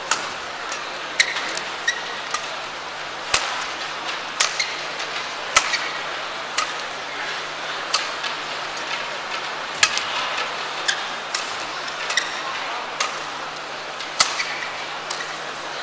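Badminton rally: rackets striking a shuttlecock, sharp cracks roughly once a second, over a low steady hum.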